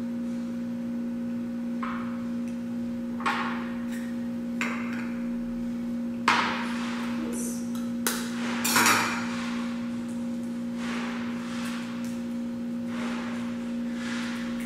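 Eggs being cracked and separated by hand: a series of short, sharp cracks and clinks of shell against glass, a second or two apart, the strongest about six seconds in. A steady low hum runs underneath.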